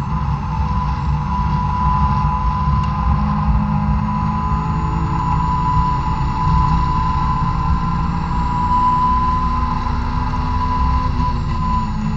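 Honda S2000's four-cylinder engine at high revs under throttle, heard from inside the cabin, with an aftermarket Fujitsubo Power Getter exhaust. The revs climb a little and then ease near the end, with a steady high whine over the engine sound.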